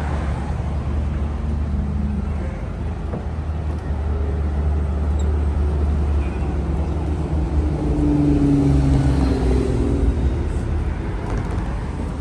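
Steady road traffic on a busy multi-lane street, cars passing close by, swelling a little about eight seconds in as a louder vehicle goes past.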